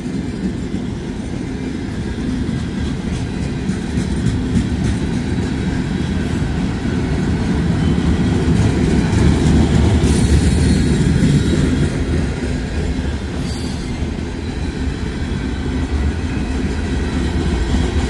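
Long CSX manifest freight train rolling past: the steady rumble of freight car wheels on the rails, with clicks over the rail joints and brief high wheel squeals about ten and thirteen seconds in.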